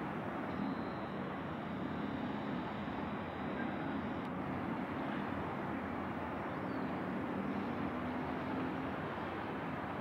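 Steady rumble and hiss of a large cruise ship's machinery and wind, with a faint low hum.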